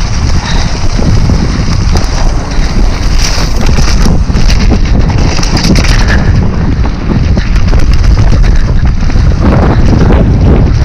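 Loud wind buffeting the camera microphone of a mountain bike riding fast down a dirt trail, over the rumble of the tyres and rattling clicks from the bike.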